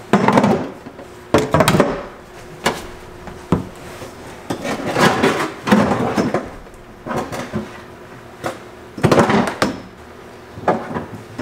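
Irregular knocks, clunks and rattles of steel tubing and tools being handled and set in place inside a car's bare footwell, in separate bursts about a second apart.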